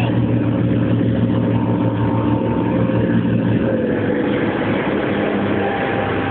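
Motorboat engine running steadily under way, with water rushing and churning in the boat's wake.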